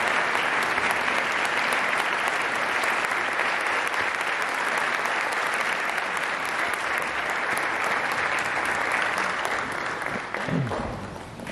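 Audience applauding steadily in a concert hall, dying down near the end.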